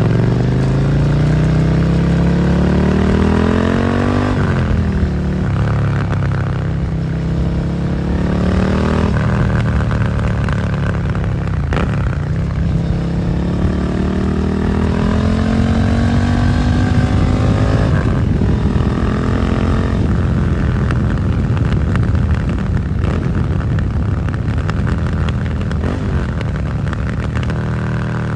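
Suzuki SV650's V-twin engine through a Dominator GP aftermarket exhaust, accelerating through the gears: the engine note climbs and drops sharply at upshifts about four, nine and twelve seconds in, then climbs more gently and settles into steadier running.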